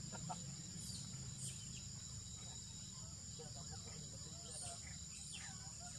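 Insects, crickets or cicadas, making a steady high-pitched drone, with a few short high chirps over it.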